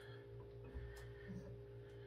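Quiet room tone: a faint steady hum with a light click about a second in.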